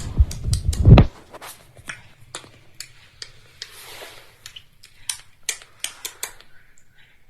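Irregular light clicks and taps of small hard objects, with a few heavy thumps in the first second.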